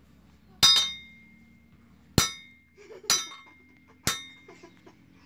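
A hammer striking a red-hot iron bar on a blacksmith's anvil four times, at uneven intervals. Each blow is a sharp metallic clang that rings on briefly.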